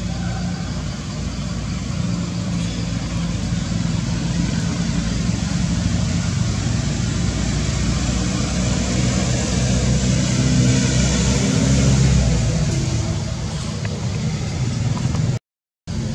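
A vehicle engine running steadily, growing louder about eleven seconds in and then easing off. The sound cuts out for a moment near the end.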